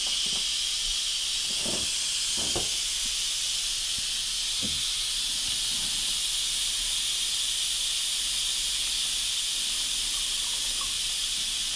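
Instant Pot pressure cooker venting steam through its release valve in a steady hiss. This is a manual pressure release: the lid stays locked until the float valve drops.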